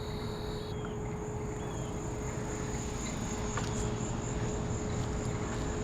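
Insects trilling steadily in a high, continuous tone, with a second, lower trill that stops just under a second in, over a low background rumble.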